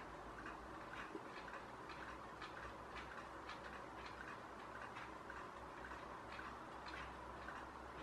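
Faint, irregular ticking, roughly two short ticks a second, over a steady background hiss.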